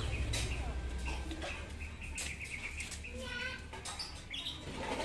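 Birds chirping: scattered short chirps and little rising and falling whistles, over a steady low hum.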